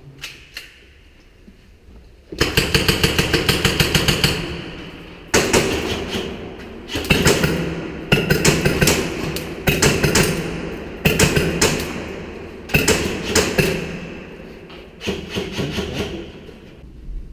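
Airsoft guns firing on full auto in repeated bursts: about eight rapid strings of shots of one to two seconds each, starting a couple of seconds in.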